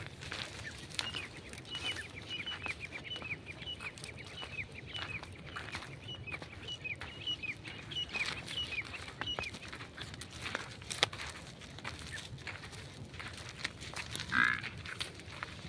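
Small birds chirping: short high chirps, each falling in pitch, repeated several times a second for most of the first ten seconds, with scattered clicks and a single louder call near the end.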